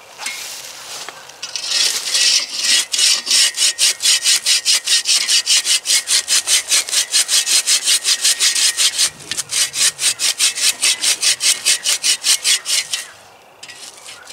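Hand saw cutting a notch across a log, fast even back-and-forth strokes at about four a second; it breaks briefly past the middle and again near the end. The notches are depth-gauge cuts made along the log before it is hewn flat with a broad axe.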